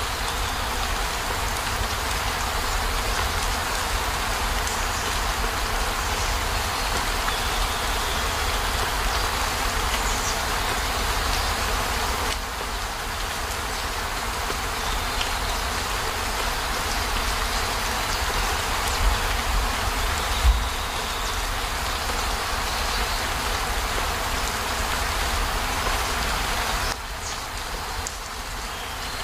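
Steady rain on a camper van's roof and windows: a dense, even patter with a low rumble underneath, and two louder knocks about two-thirds of the way through.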